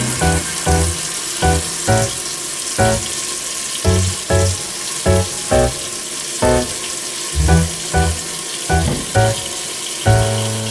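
Tap water running steadily into a kitchen sink, under background music made of short, regularly spaced notes.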